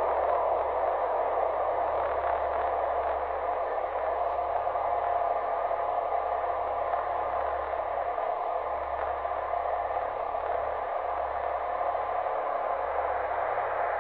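Steady static-like hiss with a low hum underneath, unchanging throughout.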